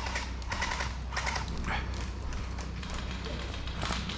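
Airsoft guns firing in several short rapid bursts of pops, the gunfire of an airsoft skirmish.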